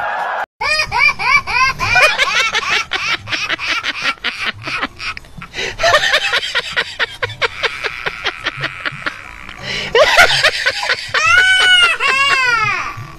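A person's high-pitched laughter in rapid repeated bursts, with a few longer drawn-out cries near the end.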